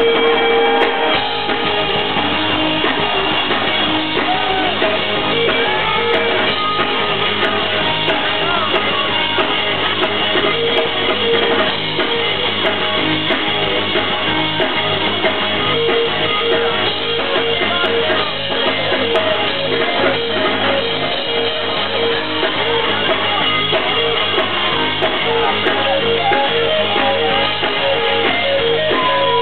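Live rock band playing continuously: keyboard synthesizers with held and gliding tones over electric bass and a drum kit.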